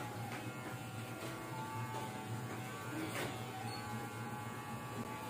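Electric pet hair clippers running with a steady buzz as they shave a toy poodle's matted fur.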